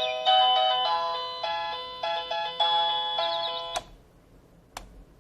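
MASTER JM-E503 alarm clock's electronic alarm melody playing a stepped tune of clean beeping notes, cut off about four seconds in with a click. A second click follows about a second later.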